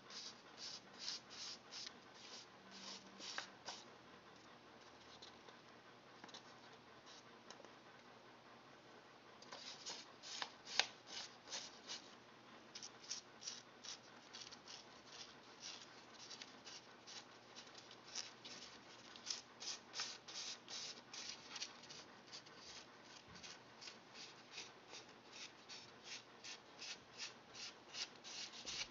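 Light, quick taps of fingers on a folded paper, shaking tiny sundew seeds out onto a peat moss and perlite mix. The taps come in runs of about two or three a second, thin out for a few seconds near the start, then pick up again.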